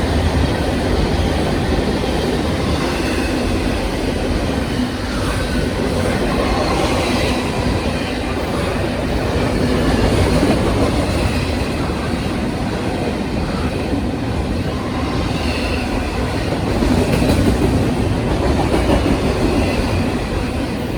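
A Union Pacific double-stack intermodal container train's cars rolling past, steel wheels rumbling steadily on the rails, with faint high-pitched wheel squeals now and then.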